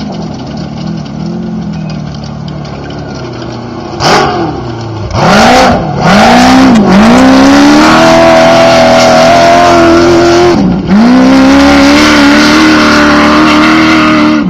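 Class 1 off-road race buggy's engine running lower for the first few seconds, then a few short revs, then loud full-throttle acceleration. About eleven seconds in the pitch drops sharply and climbs again, as at a gear change.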